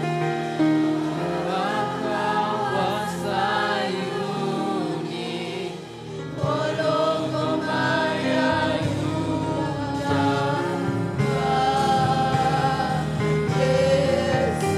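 Gospel music with a group of voices singing over instruments, briefly dipping about six seconds in before picking up again.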